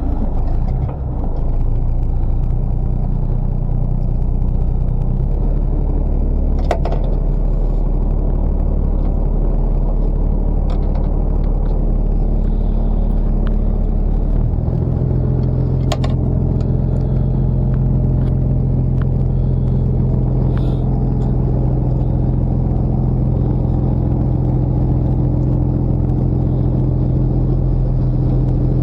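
Fishing boat's engine running with a steady low rumble, its pitch stepping up about halfway through. Two faint sharp clicks are heard.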